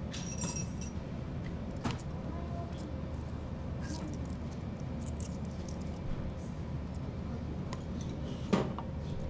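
Kitchen clatter as noodle soup is prepared: scattered clinks and taps of dishes and utensils, a ringing clink at the start and a louder knock near the end, over a steady low hum.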